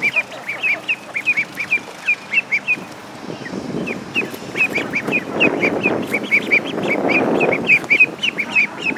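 Young ducks peeping: rapid, short, high peeps, several a second, with a brief lull about three seconds in. A low rustling noise swells underneath in the middle.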